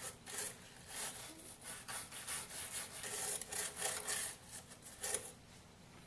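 Bristle brush scrubbing caked coffee grounds off the plastic walls inside an automatic coffee machine's brewing-unit compartment: quick, irregular scratchy strokes that stop about five seconds in.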